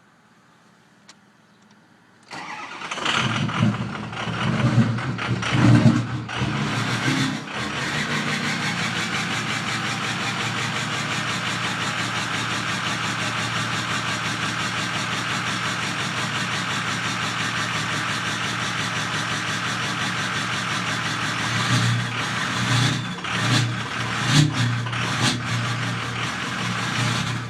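Ford 6.0 Powerstroke V8 turbo diesel cranking and catching about two seconds in, running unevenly for a few seconds, then settling to a steady idle that turns uneven again with irregular surges near the end. The owner puts the rough start and idle down to a failing FICM (fuel injection control module), which reads about 20 V instead of the normal 48 V.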